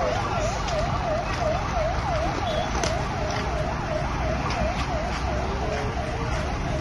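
An electronic siren warbling fast and steadily, its pitch dipping and rising about three to four times a second, over steady road noise.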